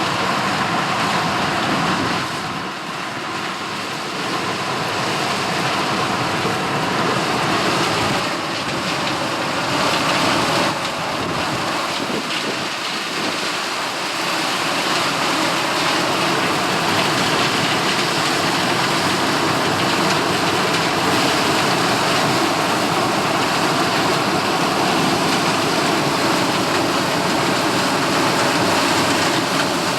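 1983 Gleaner L3 combine harvesting corn: its turbocharged Allis-Chalmers 670T diesel and threshing machinery make a dense, steady running noise. The noise drops briefly about two seconds in, then runs on.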